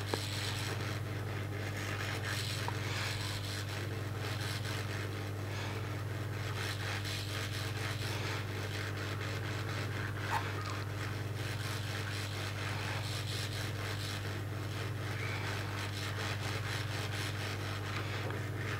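Small brush scrubbing the leads of a surface-mount chip on a TV circuit board with cleaning liquid: soft, continuous rubbing over a steady low electrical hum.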